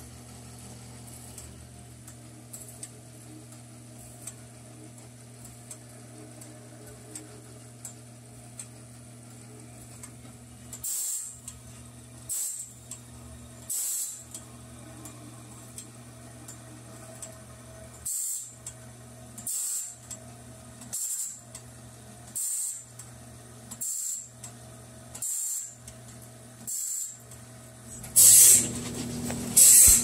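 Bandsaw blade sharpener running, its motor humming steadily; about a third of the way in the grinding wheel starts grinding the sawmill band blade's teeth one by one, a short hissing grind about every second and a half, with one pause of a few seconds. Near the end comes a longer, louder grind.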